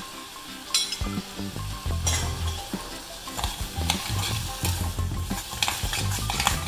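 Steel spatula stirring sugar and soft raw mango pieces in a black coated kadhai, with repeated irregular scrapes and knocks against the pan over a sizzle from the hot pan.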